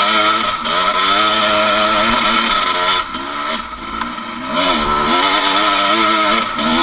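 Husqvarna WR360 two-stroke enduro engine revving hard on a steep, loose hill climb, the revs rising and falling. It eases off briefly about three seconds in, then pulls hard again.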